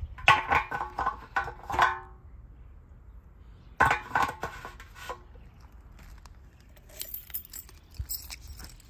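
Metal fuel cap clinking and scraping against the steel tank's filler neck as it is set in place and twisted shut. The sound comes as two bursts of sharp metallic clicks with a brief ring, then lighter, higher clicking near the end.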